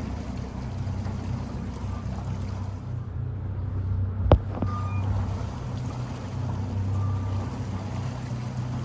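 Boat's outboard motor running steadily under way, with a low, even hum and water and wind noise around it. A single sharp knock about four seconds in.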